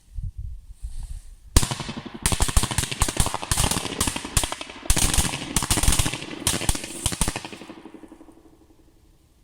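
A bunch of firecrackers going off in a deep pool, a rapid, uneven string of sharp bangs lasting about six seconds, then an echo dying away over the next two seconds.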